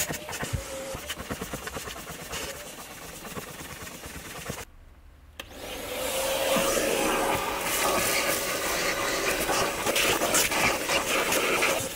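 Vacuum cleaner running with a steady motor whine, its hose nozzle rubbing over a cloth car seat and then over floor carpet. The sound drops away briefly about five seconds in, then comes back louder.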